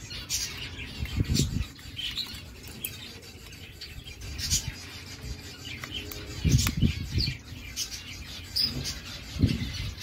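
Small aviary birds chirping with many short, high calls, mixed with dull knocks from the plastic thermometer unit being handled, loudest about six and a half seconds in and again near the end.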